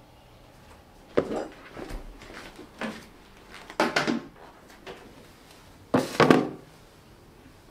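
Hollow knocks and bumps of plastic containers, a storage box and a washbasin, being put down and handled on a tiled bathroom floor. There are about five separate knocks, and the loudest comes about six seconds in, as the basin is set down.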